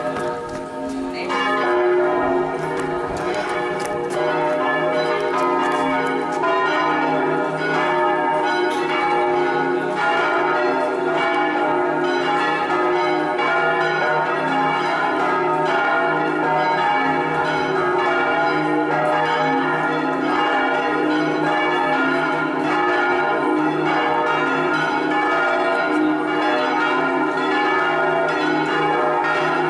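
The electrically swung bells of San Rufino cathedral in Assisi, five bells of a six-bell set in E-flat, ringing together in a full festive peal. Their overlapping strokes make one continuous wash of bell tones.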